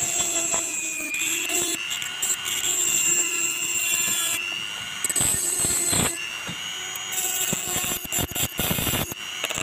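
Digital Craft rotary tool (die grinder) running at high speed with a small abrasive grinding wheel, grinding down the heads of iron nails: a steady high whine, with short harsh scrapes in the second half as the wheel bites the metal.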